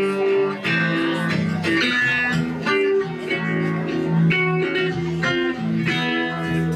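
Hollow-body electric guitar played through an amplifier, picking a run of chords and single notes with no vocals.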